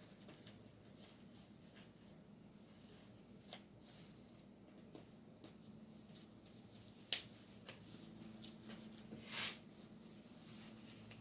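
Faint handling noise: two short sharp clicks, about three and a half and seven seconds in, and a soft rustle a little after nine seconds, over a low steady hum.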